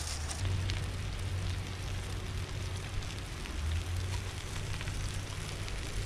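Steady rushing hiss with a strong low rumble underneath and a few faint crackles scattered through it.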